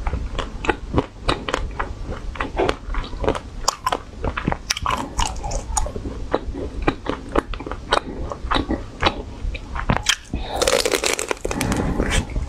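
Close-miked biting and crunching into a frozen ice cream bar, many sharp crunches in quick succession, with a denser burst of crunching and chewing near the end.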